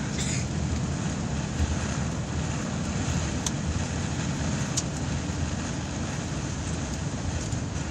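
City bus driving at road speed, heard from inside the cabin: a steady low rumble of engine and tyres, with a couple of short faint ticks from the cabin partway through.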